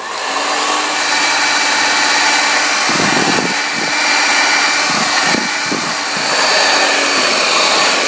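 Electric hand mixer running steadily at medium speed, its beaters whipping egg yolks and sugar in a glass bowl, with a steady motor whine and a few dull knocks about halfway through.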